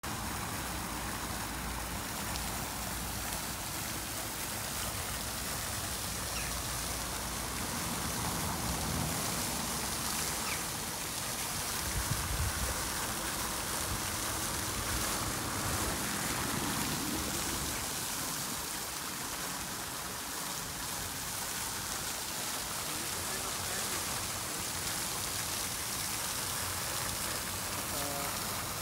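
Single-jet canal fountain: a steady rush of spray falling back and splashing onto the water surface, with a low rumble now and then.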